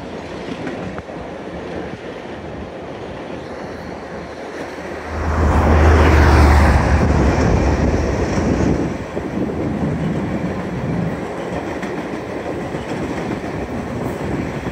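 Union Pacific passenger cars rolling past on curved track, a steady rumble of steel wheels on rail. About five seconds in it swells into a louder rush with a deep hum for about three seconds, then settles back.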